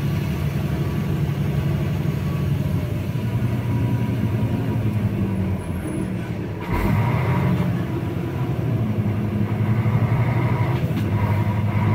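Vehicle engine running steadily at road speed with tyre and road noise, heard from inside the cab. A thump about halfway through briefly breaks the steady sound.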